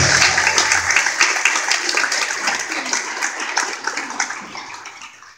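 Congregation applauding at the end of a choir anthem, with the last held chord of the accompaniment dying away in the first second. The clapping gradually thins and fades out near the end.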